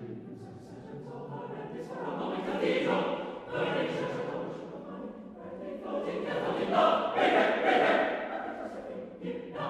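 Unaccompanied mixed choir singing fast repeated-note figures in close harmony. The singing comes in swells and grows loudest near the end.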